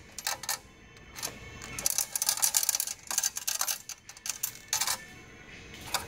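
2010 Mazda 3 radio head unit being handled: its sheet-metal case and plastic bracket clatter in quick clicks and rattles, a short cluster about a second in and a longer run through the middle.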